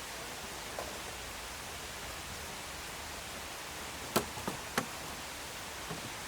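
Three sharp knocks in quick succession about four seconds in, the first the loudest, over a steady hiss; a fainter tap comes near the start and another near the end.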